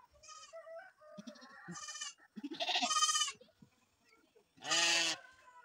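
Goats or sheep bleating, with four separate bleats. The last bleat, about five seconds in, is the loudest and lowest.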